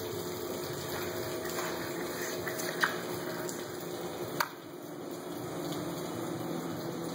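Steady rushing noise like running water, with a low hum under it, as from a pump running in the winery cellar. Two short taps cut through it, about three seconds and about four and a half seconds in.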